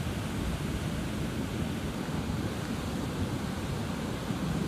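Turbulent floodwater rushing down a swollen river: a steady low rushing noise.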